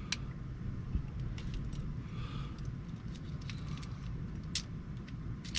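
Scattered light metallic clicks and ticks of Schlage lock parts being turned and adjusted by hand, over a steady low hum.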